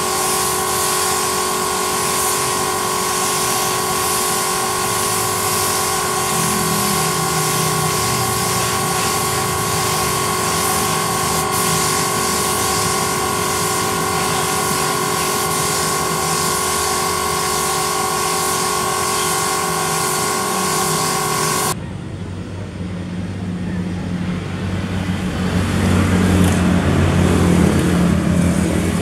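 Gravity-feed spray gun hissing steadily as it sprays clear coat, over a steady whine from the air supply. It cuts off suddenly about three quarters of the way through, and a low engine rumble builds toward the end.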